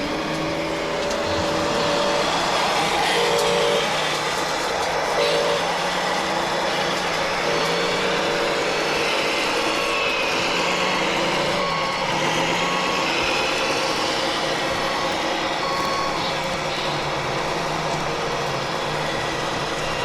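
Radio-controlled scale trucks running with their sound modules playing simulated diesel engine noise that rises and falls with the throttle, and a reversing beeper sounding several times in the middle.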